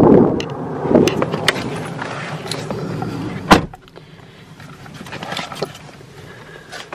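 A few small clicks and rustles, then the driver's door of a 2021 Ford Escape shutting with a single thud about three and a half seconds in; the outside noise drops away once it is shut.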